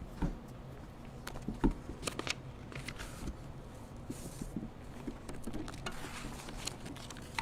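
Scattered light clicks, taps and rustling from objects being handled, with one louder knock about one and a half seconds in and a short rustle near the middle.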